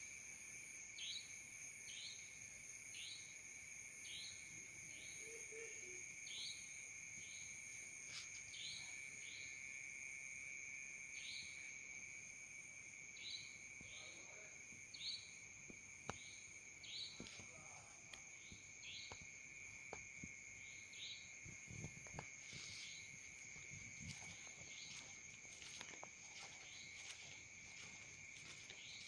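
Faint night insect chorus: crickets trilling steadily at several high pitches, with a short falling chirp repeating about once a second and a few faint clicks and soft thumps later on.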